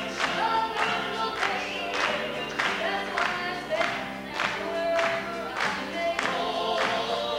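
Live gospel band playing: several voices singing together in harmony over drum kit, electric bass and keyboard, with a steady beat.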